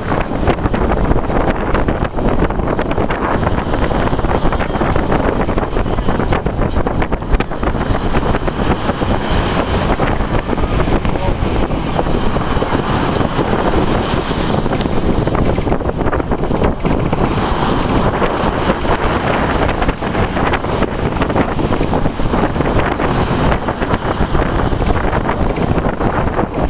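Wind blowing hard across the microphone: a loud, steady, rough rushing noise with no breaks.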